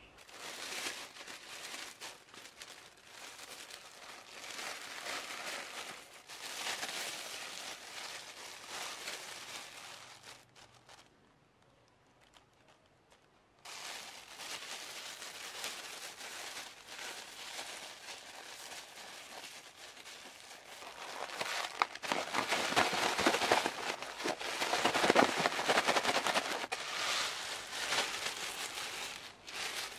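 A thin plastic bag crinkling and rustling as it is handled with shredded potato and rice flour inside. The crinkling stops for a couple of seconds about eleven seconds in, then resumes and is loudest in the latter part, when the bag is shaken.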